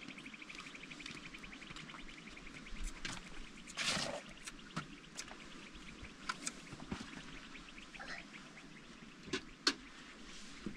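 Outdoor ambience: a fast, high trill that fades out in the first few seconds, then scattered light clicks and knocks, the loudest about four seconds in.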